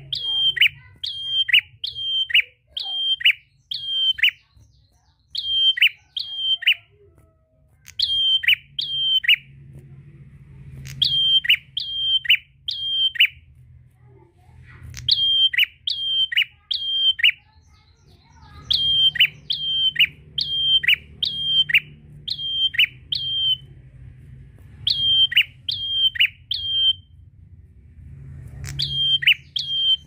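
Caged prenjak, a rufous-crowned tailorbird, calling loudly with repeated sharp notes that each drop steeply in pitch. The notes come in bursts of two to six at about two a second, with short pauses between bursts.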